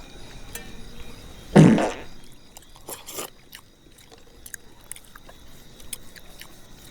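A man's single loud bodily noise, about a second and a half in and lasting about half a second, followed by a few faint clicks.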